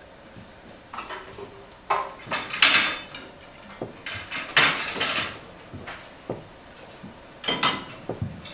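China teacups, saucers and spoons clinking and clattering in several short bursts as crockery is handled on a table.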